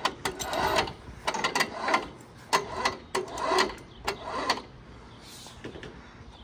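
Harbor Freight electric cable hoist jogged in several short bursts as it takes the weight of an air-conditioner condenser. Each run starts with a click and whirs for well under a second, and the bursts stop about four and a half seconds in.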